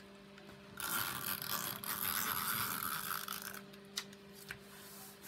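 Paper sheet being rubbed and pressed against a cutting mat by hand and tool, a scratchy rubbing lasting about three seconds, followed by two light taps. A faint steady electrical hum sits underneath.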